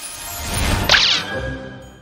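Cartoon transition sound effect: a whoosh that swells up to a bright, sparkly hit about a second in, then fades out under a few held musical notes.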